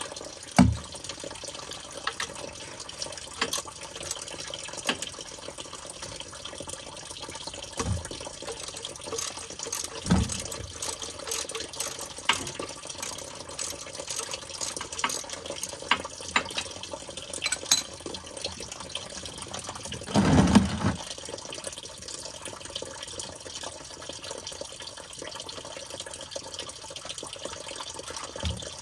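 Engine oil pouring in a steady stream from a Ford F-150's oil pan drain hole into a drain pan. Scattered light clicks and knocks come through it, with a louder thump about 20 seconds in.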